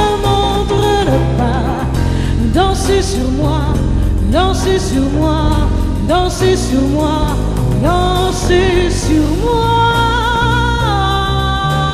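Live jazz quartet playing. A woman's singing voice swoops up into notes several times, then holds long wavering notes near the end, over piano, upright bass and drums with cymbals.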